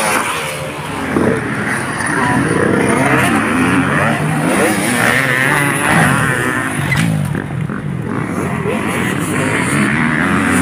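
Several motocross dirt bike engines revving and accelerating over the jumps, their pitch rising and falling again and again.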